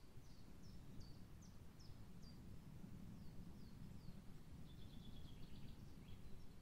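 Faint woodland birdsong: a songbird repeats short high notes that slide downward, two or three a second, then gives a quicker high trill about five seconds in. A low steady rumble lies underneath.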